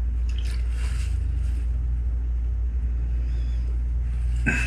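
A steady low rumble in the background, with soft rustling of an isopropyl-soaked paper towel being rubbed over a circuit board in the first second or so, and a single click near the end.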